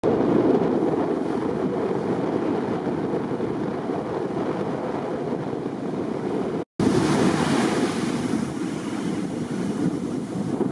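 Rough sea surf breaking and rushing, with wind buffeting the microphone. The sound cuts out for an instant partway through.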